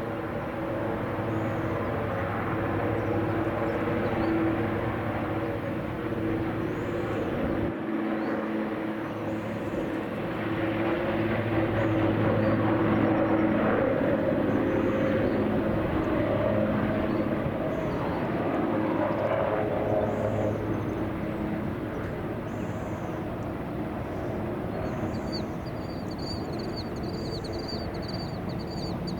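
Airbus AS332L Super Puma helicopter's twin turboshaft engines and rotor running steadily: a droning hum over a rushing noise. It grows louder around the middle and eases off somewhat later. Faint high chirps come over it near the end.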